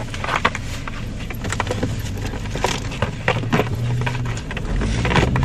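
Rustling and clicking of a cardboard shoe box and plastic shopping bag being handled, over a car engine idling. Near the end the engine note rises as the car starts to pull away.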